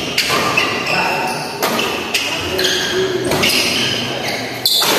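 Badminton doubles rally: rackets striking the shuttlecock in several sharp hits roughly a second apart, with players' footwork on the court and chatter in a large hall.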